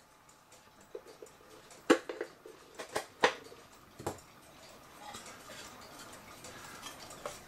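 Irregular clicks and knocks from a wooden cuckoo clock case being handled and opened, a handful of sharp taps at uneven spacing in the first four seconds, then quieter handling noise.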